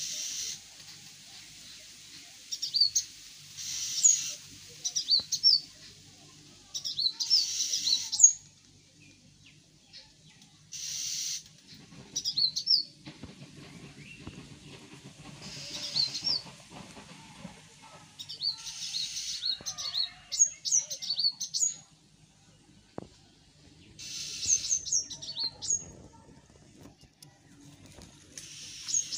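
Small birds chirping: quick high chirps in short clusters every few seconds, mixed with brief hissy buzzes.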